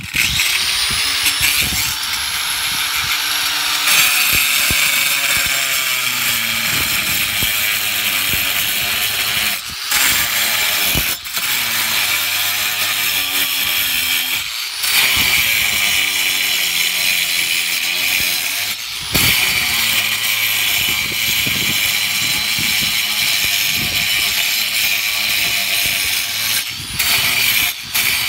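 Corded Harbor Freight angle grinder with a diamond blade spinning up, then cutting into a cement roof tile: a continuous harsh grinding whine that gets louder about four seconds in as the blade bites, easing off briefly several times when the blade is lifted.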